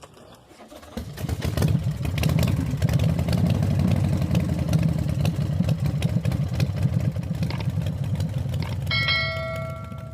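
2016 Chevrolet Silverado engine cranking and catching about a second in on a newly fitted spare key, then idling steadily: the immobilizer has accepted the key. Near the end a steady electronic chime sounds for about a second as the engine sound fades.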